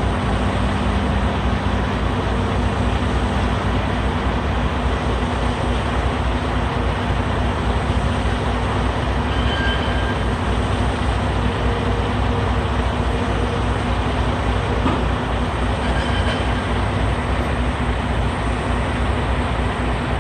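Heavy diesel engine running steadily, a constant low rumble with no change in speed.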